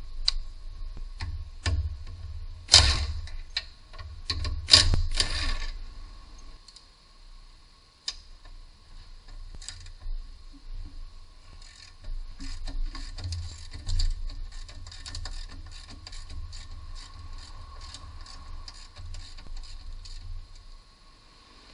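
Hand ratchet wrench clicking in quick runs as it works a bolt on a Ford Focus front lower control arm. A few louder metallic knocks come near the start.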